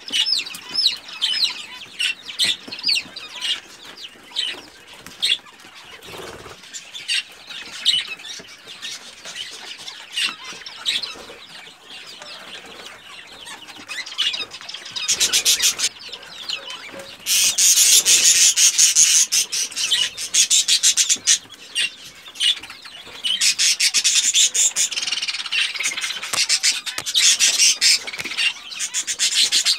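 Young Pekin bantam chicks peeping. From about halfway there is a dense, rapid scratching and pecking as they scratch through chick crumb in a feed tray, louder than the calls.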